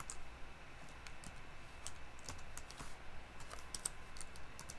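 Typing on a computer keyboard: irregular keystrokes with short gaps between them.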